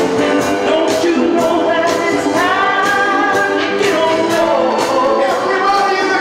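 Disco music with singing, sustained sung notes over a steady beat of about two strikes a second.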